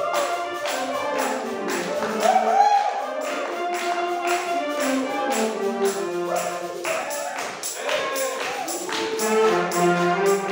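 Wind band of saxophones and brass playing a lively Cajun/zydeco-style piece live, over a steady percussion beat.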